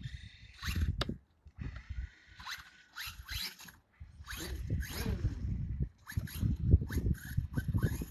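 Wind buffeting the microphone in irregular gusts. Under it, a Traxxas TRX-4 RC crawler on Traxx snow tracks drives through snow, its electric motor and gears whining and changing pitch as it speeds up and slows down.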